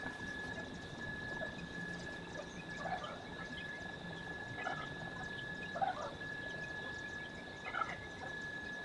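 Four short animal calls, spaced a second or two apart, over a steady high-pitched tone.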